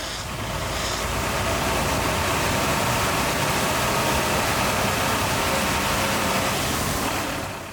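An engine running steadily, with a low rumble under a strong hiss. It fades in at the start and fades out near the end.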